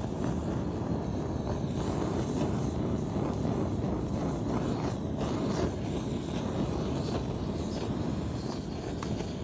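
Gas blowtorch burner running with a steady low rushing, its flame charring the surface of a wooden stick for a shou-sugi-ban finish.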